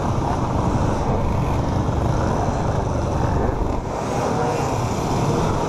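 A pack of modified mopeds riding together, their small engines buzzing at once, under a steady heavy rush of road noise on the camera's microphone.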